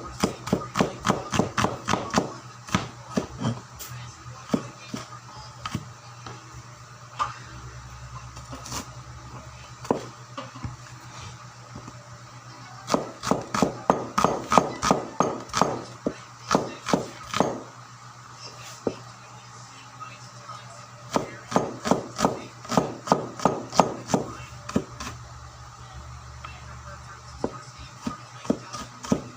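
Knife chopping on a cutting board in three fast runs of strikes with pauses and a few single strikes between, over a steady low hum.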